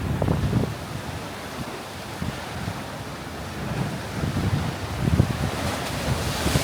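Ocean surf washing and surging on a rocky shoreline, with wind gusting on the microphone.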